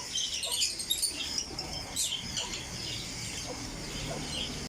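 Parrot chicks giving short, high chirping calls, typical begging calls of chicks being hand-fed.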